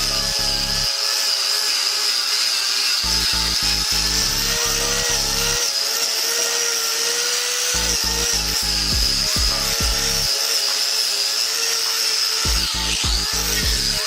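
Corded angle grinder fitted with a wire wheel running with a steady high whine, its pitch dipping briefly near the end. Music with a deep bass beat plays along with it, dropping in and out every few seconds.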